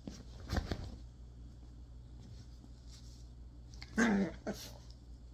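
Two Yorkshire terriers play-fighting, giving short bursts of growling, the loudest about four seconds in.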